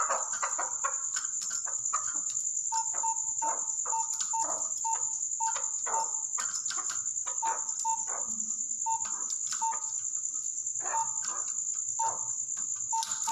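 Chukar partridge giving a long run of short, sharp clucking notes, about one to two a second, over a steady high-pitched whine.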